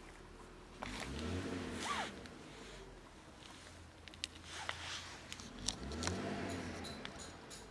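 Two passing road vehicles, each swelling and fading over about a second, one about a second in and another near the end, with a few light clicks between them.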